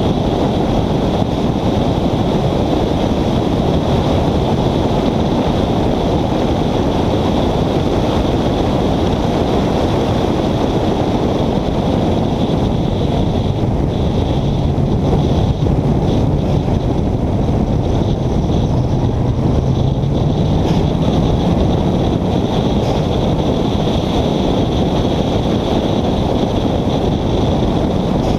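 Wind blasting over a bonnet-mounted camera on a car at speed, with the engine note underneath rising in pitch about halfway through and a steady high whine above.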